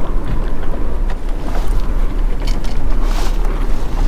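Steady low rumble of wind buffeting the microphone over noise around a small boat on the water, with a few brief sharp sounds in the second half.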